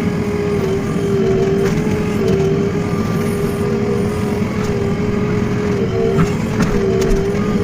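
JCB 3DX backhoe loader's diesel engine running steadily, with a constant whine that wavers slightly in pitch and a few faint knocks.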